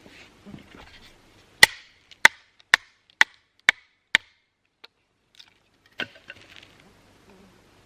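Wood being chopped with a hand tool: six sharp strikes about two a second, then a lighter knock and one more strike near the end.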